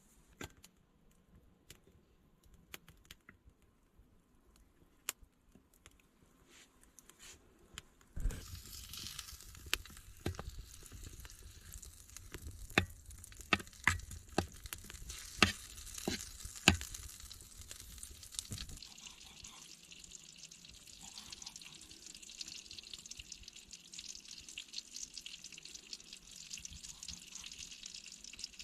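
A few light clicks. Then, about eight seconds in, food starts sizzling in a hot pan, with sharp clicks and knocks on top. After a while the sizzle settles into a steadier, higher hiss.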